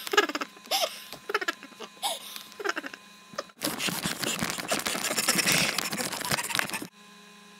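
A young man laughing and shrieking for the first few seconds, then about three seconds of loud rubbing and scraping noise as the webcam is pressed against him and moved. It cuts off suddenly near the end, leaving a steady low hum.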